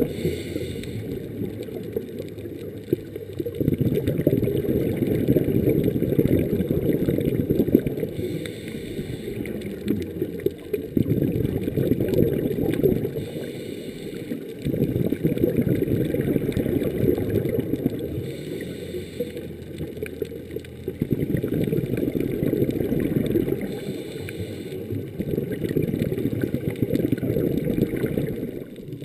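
Scuba diver breathing underwater through a regulator: a short hiss of inhalation about every five seconds, then a longer low bubbling rumble of exhaled air, heard through an underwater camera housing.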